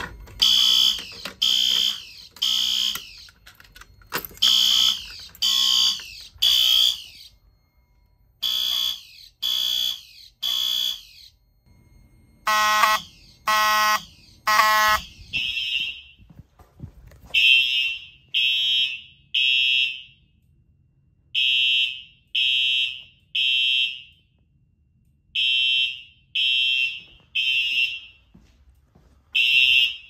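Fire alarm horns sounding in a temporal three pattern: three loud blasts, a pause, then again, about every four seconds. The sound of the horn changes twice as different horns come to the fore, from a buzzy sweeping horn to a lower, fuller horn to a high single-tone horn.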